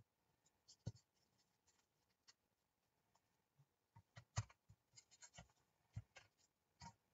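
Faint scattered clicks, taps and rustles of small paper flowers and craft pieces being handled and pressed into place on a work surface, coming thicker in the second half.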